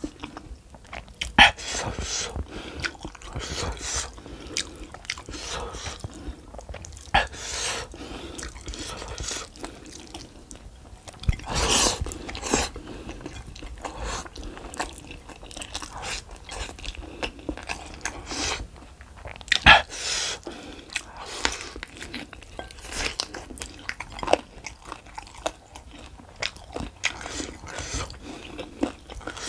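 Close-miked eating sounds of a person chewing and biting mie ayam noodles and fried chicken by hand: irregular mouth clicks and smacks, with a few louder bites.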